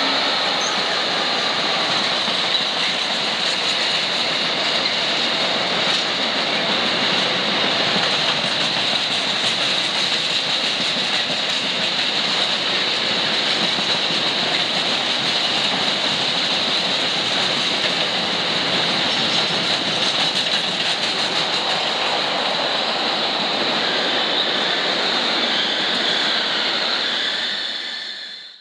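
Container wagons of a freight train rolling past at speed: a steady rush and rattle of wheels on rail with a high whine held over it, fading out near the end.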